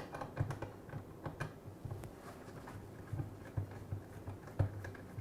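Faint, irregular light clicks and taps of a screwdriver backing out the Phillips screws at the base of a dishwasher's wash tube, metal on metal.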